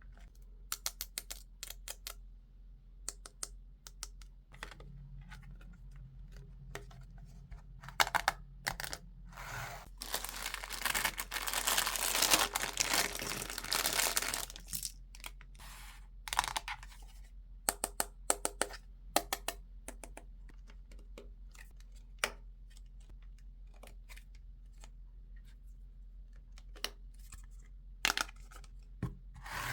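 Toy unboxing sounds: scattered light clicks and taps of small toy pieces being handled, and about four seconds of packaging being torn and rustled about ten seconds in.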